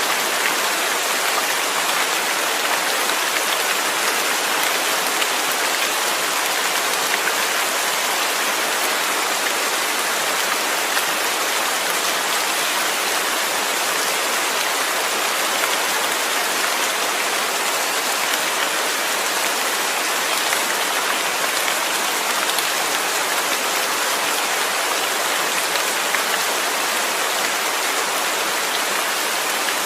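Steady rain falling, an even hiss with faint scattered drop taps.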